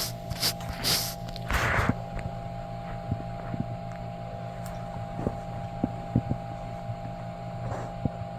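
Stomach gurgling from digesting milk and cheese: irregular short pops and gurgles over a steady low hum, with a few scratchy rustles in the first two seconds.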